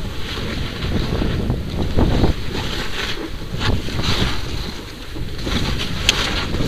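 Wind rumbling and buffeting on a helmet-mounted action camera's microphone while skiing through snow, with a hiss and crackle of snow mixed in.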